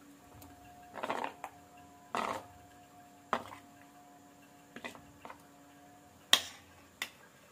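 Soft wet squelches of a cutlet being turned and lifted by hand in thick batter in a steel bowl, with light taps against the bowl and one sharp click about six seconds in. A faint steady hum runs underneath and stops just after that click.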